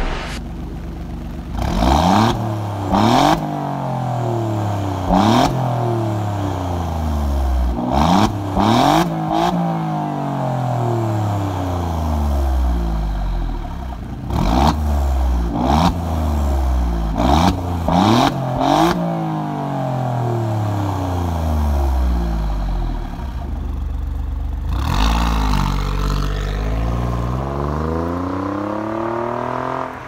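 Alfa Romeo Giulia Quadrifoglio's Ferrari-derived 2.9-litre twin-turbo V6, through its stock exhaust, free-revved while standing still: about a dozen sharp blips, often in quick pairs or threes, each falling slowly back to idle, with a longer rev near the end.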